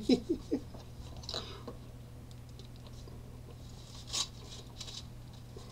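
A few short voice sounds right at the start, then soft rustles and crinkles of paper as a small folded note is handled and opened, the clearest about four seconds in.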